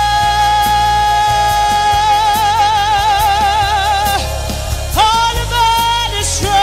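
Live gospel worship music: a singer holds one long high note, steady at first and then with a wide vibrato, stops just past four seconds, and starts a new ornamented phrase about five seconds in, over the band's steady bass and keys.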